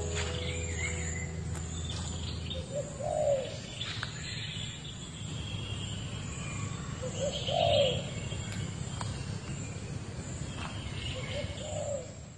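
A dove cooing: a short phrase of a brief lead note and a longer arched coo, repeated three times about every four seconds.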